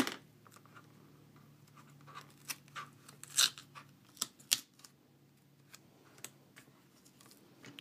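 A small piece of duct tape being picked at and peeled up off a cutting mat by hand: faint scratchy crackles and clicks, with a couple of sharper ones around the middle.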